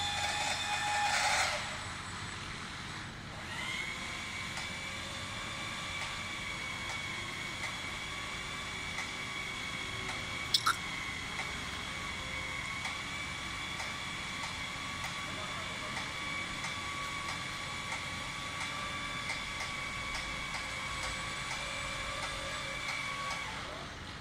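Electric power tool motor running steadily with a high, even whine, with a brief sharp click about ten and a half seconds in.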